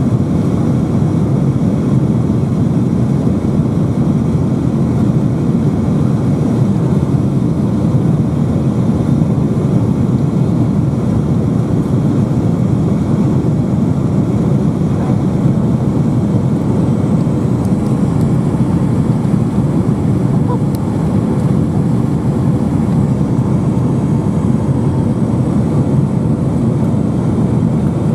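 Steady cabin noise inside a Boeing 757-200 in flight: the low, even roar of the engines and airflow, unchanging throughout.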